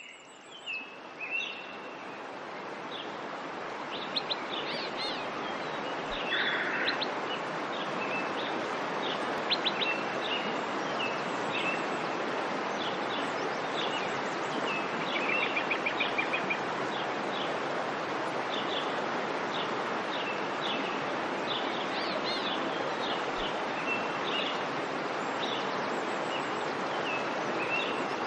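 Birds chirping and calling, many short chirps and quick trills, over a steady background hiss like an outdoor nature ambience. It fades in over the first several seconds.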